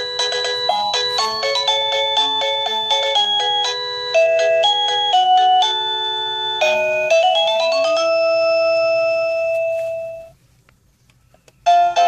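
SadoTech wireless doorbell receiver playing chime no. 48, a quick electronic tune of single notes. The tune ends in a rising run of notes and a long held note that fades out about ten seconds in. After a short silence, the next chime starts just before the end.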